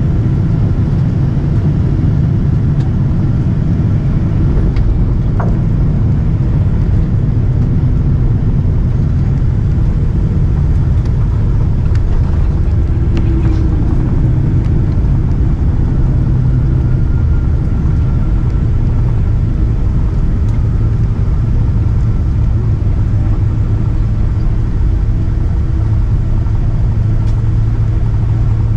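Steady low rumble of a Boeing 777-200ER heard from inside the passenger cabin: engine and airflow noise from the aircraft in motion, with faint steady tones over it.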